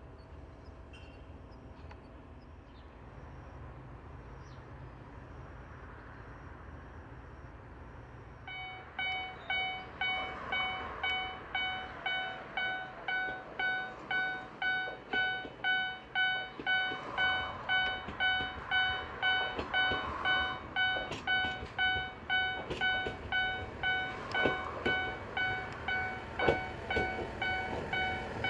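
A railway level-crossing warning bell starts about a third of the way in: a ringing electronic clang that repeats about twice a second without a break. A Tenryu Hamanako Railway TH2100-series diesel railcar approaches under it, and sharp clicks from its wheels over the rail joints grow louder toward the end.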